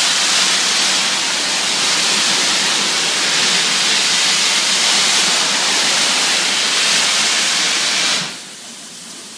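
Steam locomotive 60163 Tornado, a Peppercorn A1 Pacific, letting off steam with a loud, steady hiss as it moves slowly out of the platform. The hiss cuts off abruptly about eight seconds in.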